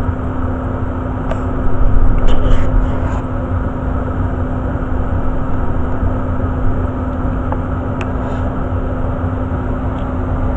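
Very old Day and Night gas furnace running with its blower fan on, a steady rush of air with a constant low hum. A few brief clicks and knocks come through, most of them about one to three seconds in.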